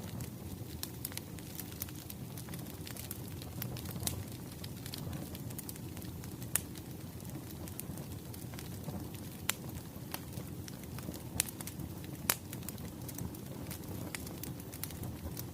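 Crackling wood fire: a steady low rumble of burning logs with many scattered sharp pops, a few louder ones in the second half.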